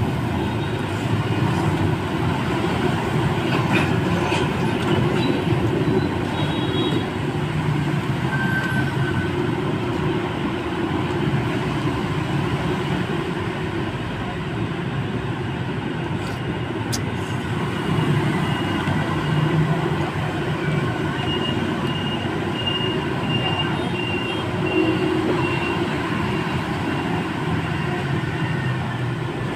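Steady roadside street noise: a constant hum of passing traffic, with faint voices now and then.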